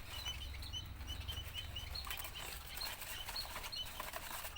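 Small songbirds in an aviary giving short, high chirps several times a second, with wing flutters and rustling among them.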